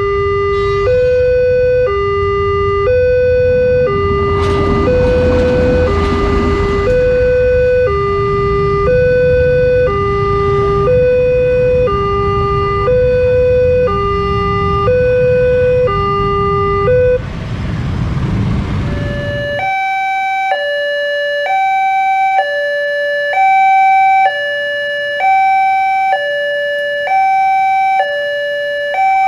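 Railway level-crossing alarm sounding an electronic two-tone chime, alternating high and low at about one pair a second, with motorcycle and traffic noise beneath that swells twice. About twenty seconds in, the traffic noise cuts off and a different crossing alarm takes over, alternating on a higher pair of tones.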